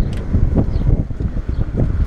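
Wind buffeting the microphone in an uneven low rumble, with a few light knocks as someone climbs into a car seat.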